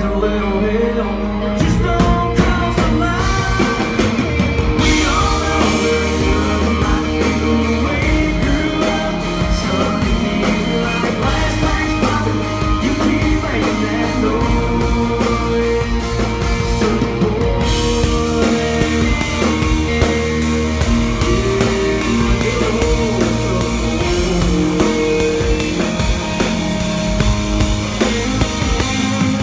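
Live country-rock band playing loud: strummed acoustic guitar, bass and drum kit, with cymbals crashing in about five seconds in, and a male voice singing over it.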